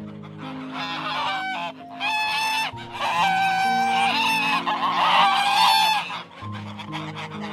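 Waterfowl honking: a series of long, clear honking calls, the loudest each lasting about a second, over soft background music with held low notes. The calls stop a little after six seconds in, leaving only the music.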